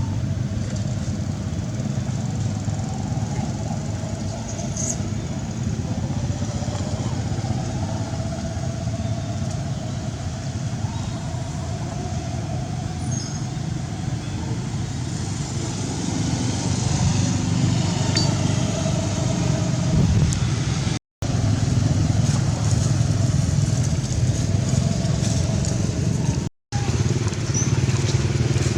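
Steady hum of road traffic engines, growing a little louder partway through. It cuts out twice, briefly, near the end.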